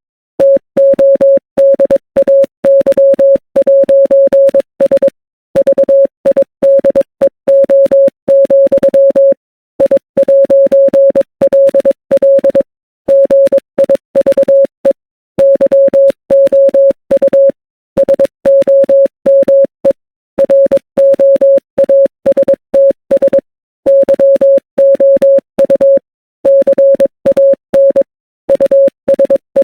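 Morse code played as a single steady beep, keyed on and off in quick dots and dashes, with brief pauses every few seconds.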